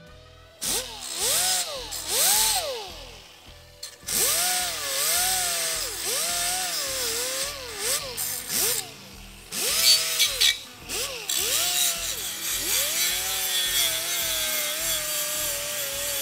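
Pneumatic right-angle die grinder with a small sanding disc grinding the edge of a steel patch panel back to a marked line. It runs in spurts with short pauses, and its whine sags and recovers in pitch over and over as it bogs under pressure and frees up, with a gritty hiss of abrasive on metal.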